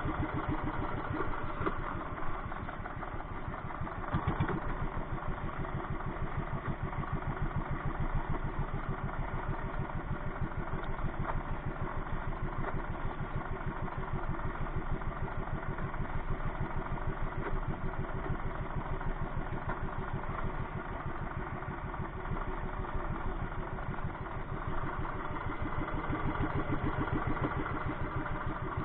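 Small engine running steadily with an even, rapid pulse.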